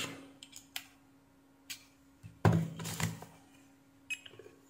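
Faint light clicks of a screwdriver tip touched across the metal terminals of a small film capacitor to discharge it, followed about two and a half seconds in by a short wordless voice sound, the loudest thing here, and near the end a quick click as a multimeter button is pressed.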